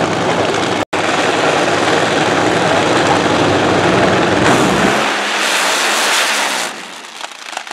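Two nitro-burning Funny Car engines, supercharged V8s, running very loud at the starting line, then launching down the drag strip about four and a half seconds in. The sound thins and drops away near the end as the cars pull off.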